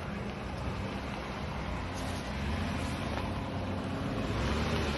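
Off-road vehicle engine running at low revs, with its pitch rising slightly about halfway through.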